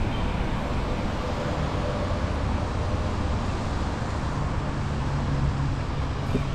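Street traffic on a wet city road: a steady rumble and hiss of passing vehicles, with a low engine hum joining about four seconds in.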